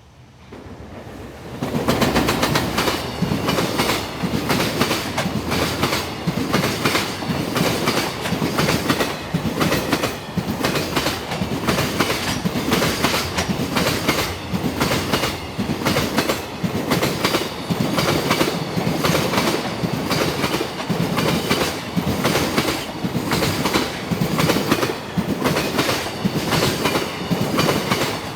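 Freight train hauled by an EF210 electric locomotive rolling past, its wheels clicking rhythmically over the rail joints. It builds up quickly about a second or two in, then keeps a steady, loud clickety-clack.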